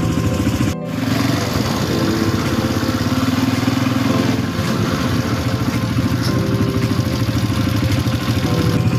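ATV (quad bike) engine running as it drives along, a steady drone with the throttle varying a little. There is a brief drop just under a second in.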